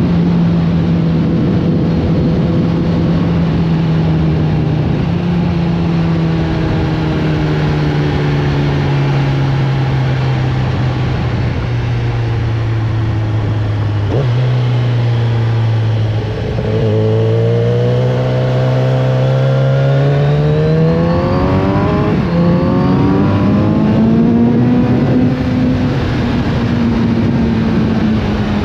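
Kawasaki Z900RS Café's 948 cc inline-four engine under way, with wind noise. The engine pitch falls slowly for about half the time as the bike rolls off, then rises again as it accelerates, with a sudden drop in pitch about three-quarters of the way through at a gear change.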